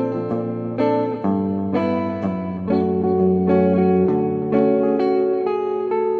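Electric guitar played in a clean tone: a slow jazz-ballad passage of plucked chords and melody notes that ring on and overlap over a sustained low bass note.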